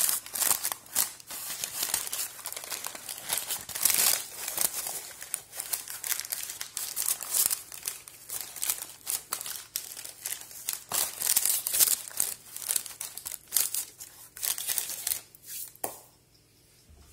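Baking paper crinkling and rustling as hands press rolled dough into a paper-lined baking mould, a dense run of irregular crackles that dies away near the end.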